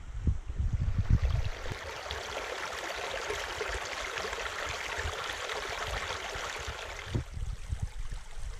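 Small creek running steadily, with a rush of flowing water that starts about a second in and cuts off suddenly near the end. There are low rumbling thumps on the microphone at the start.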